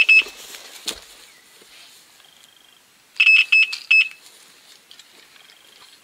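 Electronic carp bite alarms beeping in quick bursts as a fish takes line on a run. There is a burst at the start and another of about five beeps about three seconds in, with fainter, higher beeps between them. A short knock sounds about a second in.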